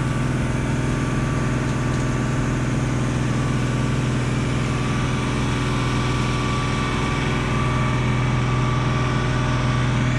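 Fire truck's engine running at a steady speed, powering its water pump to feed the hose, with a constant low hum.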